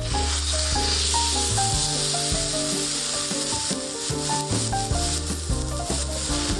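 Food sizzling in a hot pan, an even hiss that starts abruptly and cuts off near the end, over background music with held notes and a bass line.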